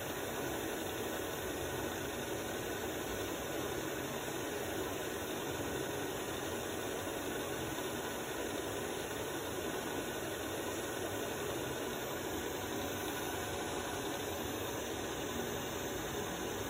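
iLife V55 Pro robot vacuum running with a steady, even whir while it is stuck in place against a door frame.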